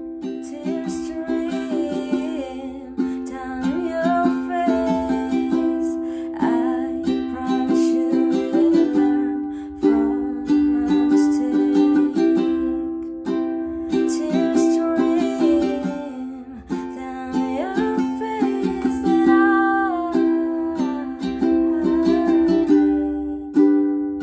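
Transparent ABS plastic concert ukulele in standard G-C-E-A tuning, strummed in a steady chord pattern with a melody line moving up and down above the chords.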